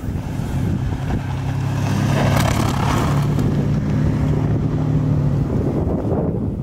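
Honda Pilot SUV driving slowly past on a slushy, snow-covered road: a steady engine hum with the hiss of its tyres through slush, loudest as it passes about two and a half seconds in, then fading as it moves away.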